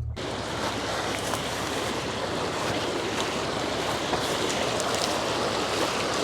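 Mountain river water rushing over a stony bed: a steady, even rush.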